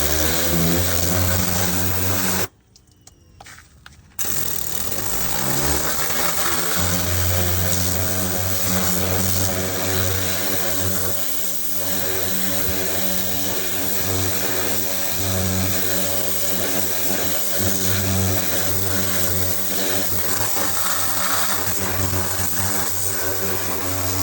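AR Blue Clean electric pressure washer's motor and pump running with a hiss of water spray. It spins up, stops about two and a half seconds in, then spins up again a couple of seconds later and runs steadily.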